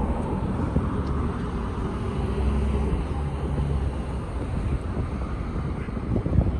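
Light road traffic on a city street, with wind rumbling on the microphone. A car's engine passes by about halfway through.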